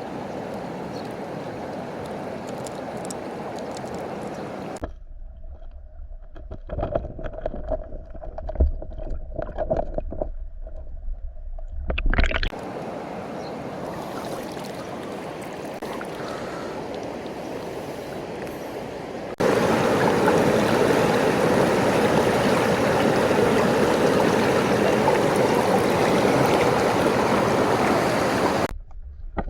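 Mountain stream water rushing steadily, in several clips with abrupt cuts between them, louder in the last third. From about five to twelve seconds in, the rush gives way to a muffled stretch with low rumble and scattered knocks and handling noises.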